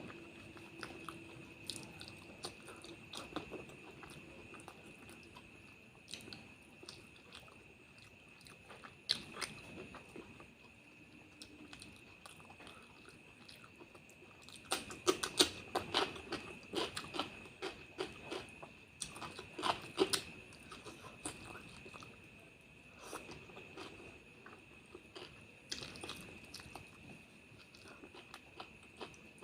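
A person chewing and biting food, with wet clicking and smacking mouth sounds that come thickest around the middle. A faint steady high-pitched whine runs underneath.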